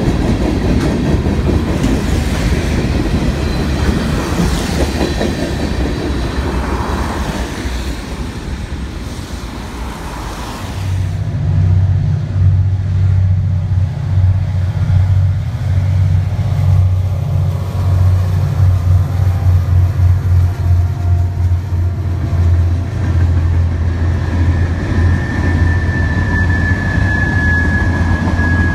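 Freight train rolling past, its car wheels clattering over the rail joints. After a sudden change about eleven seconds in, diesel locomotives' steady low engine drone runs under the passing covered hoppers, and a thin wheel squeal rises near the end.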